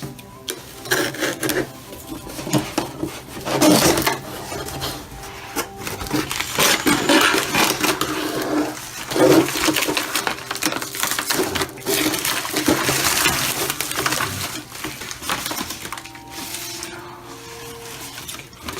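Packaging around a replacement laptop LCD panel being opened by hand: wrapping crinkles and rustles in bursts, with sharp clicks and small knocks as it is pulled apart.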